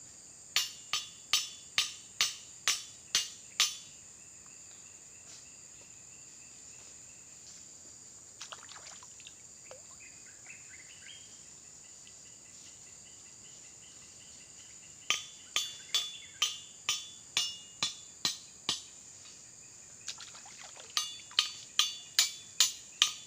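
Steady high-pitched insect drone, with three runs of sharp taps at about two a second, each tap splashy and quickly fading: one near the start, one about fifteen seconds in and one near the end.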